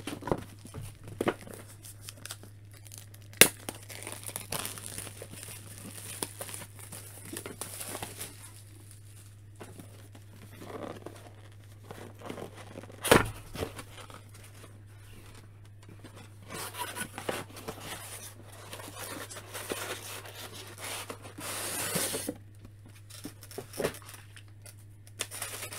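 Plastic shrink-wrap being torn and crumpled off a cardboard product box, with irregular rustling and handling noise and two sharp knocks, the louder one about halfway through. A low steady hum runs underneath.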